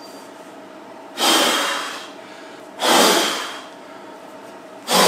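A person blowing hard three times, each blow under a second long with a sharp start and a fading tail, to clear sawdust from freshly carved letters in a board.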